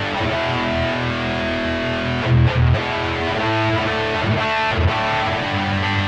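Electric guitar played through a Mooer GE100 multi-effects pedal on its factory 'Metal Lead' preset (P22): a heavily distorted lead tone with long held notes, and heavier low notes about two and a half seconds in.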